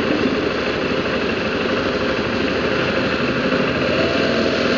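Single-cylinder engine of a BMW G650GS motorcycle running in slow city traffic, under a steady rush of wind and road noise.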